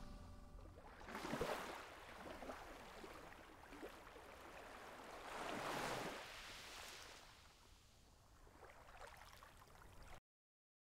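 Faint rushing noise, like water washing, that swells twice (about a second and a half in, and again around six seconds) and then cuts off suddenly near the end.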